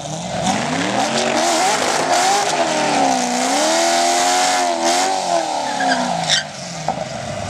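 Chevrolet Corvette C6's V8 held at high revs in a burnout, its pitch wavering up and down as the rear tyres spin and squeal over a hiss of tyre noise. The engine note drops off about six seconds in.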